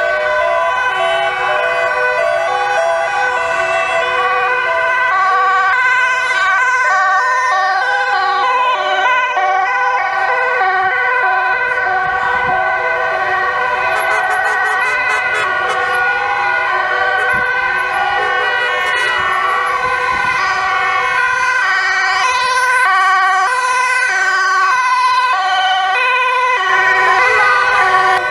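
Many emergency-vehicle sirens sounding at once as a convoy of Dutch police, customs and fire-service vehicles drives past: overlapping two-tone sirens stepping between two pitches, with some rising and falling wails among them, plus the running of the vehicles' engines.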